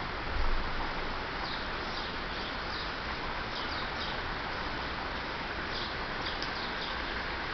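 Steady hiss of rain, with birds giving short high chirps in small clusters through it. A short low thump about half a second in.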